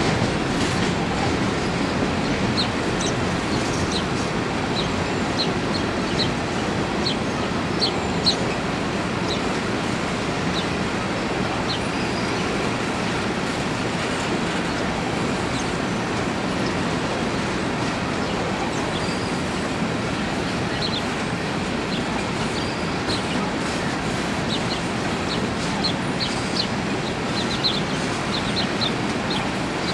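Empty coal train's hopper cars rolling past: a steady rumble of wheels on rail, with short high squeaks scattered throughout.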